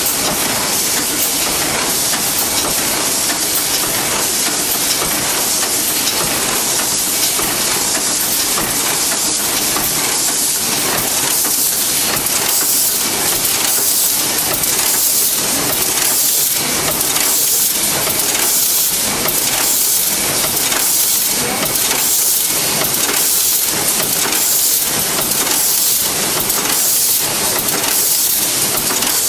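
Steel chain welding and bending machine running continuously, with a loud steady hiss and a regular pulse that becomes more distinct after the first few seconds.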